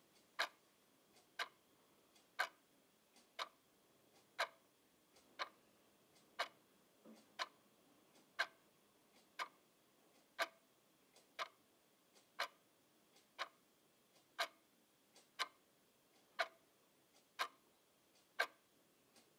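A clock ticking steadily, about one sharp tick a second.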